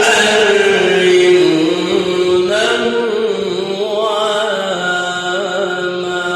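A man chanting the Quran in melodic tajweed style, drawing out one long ornamented phrase whose pitch wavers and turns. The phrase fades away near the end.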